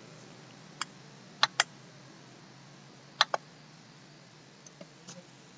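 Computer mouse clicks: a single click, then two quick pairs of sharp clicks, and a few fainter ticks near the end, over a steady low hum.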